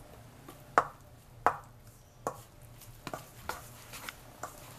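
Metal spoon knocking against a stainless steel bowl while stirring a thick flour, yeast and water paste, about six sharp knocks at an uneven pace.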